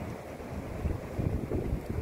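Wind buffeting the microphone in irregular gusts, stronger from about a second in, over the steady wash of breaking surf.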